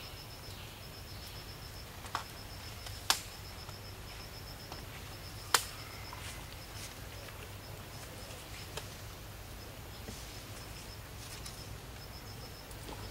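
A high-pitched insect chirping in short, rapid trills about once a second, over a low steady hum, with a few sharp clicks, the loudest about three and five and a half seconds in.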